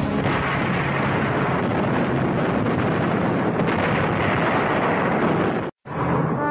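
Explosions: a steady, dense rumble of blasts that cuts off suddenly about a second before the end. Music with held notes follows.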